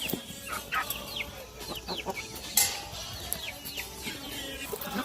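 Chickens calling, a run of short high calls that each fall in pitch, with a single sharp click about halfway through.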